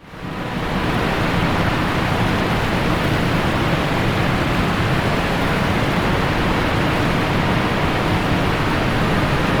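Steady rushing noise of a waterfall, fading in over the first half-second and then holding even.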